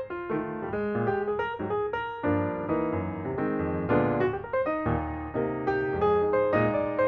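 Piano music: a flowing run of struck notes over lower bass notes.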